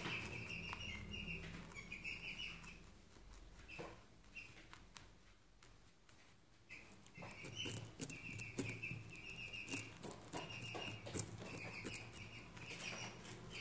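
Dwarf rabbit chewing raw carrot: rapid, crisp crunching in runs, with a quieter pause of a few seconds midway.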